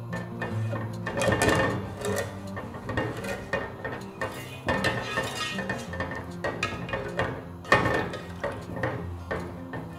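A slotted spatula scraping and clinking against a metal pot, irregularly and repeatedly, as semolina, sugar and water are stirred together.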